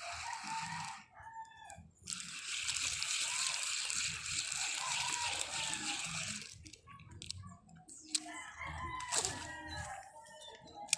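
A rooster crowing. A steady hiss runs under it for a few seconds in the middle, and a couple of sharp clicks come near the end.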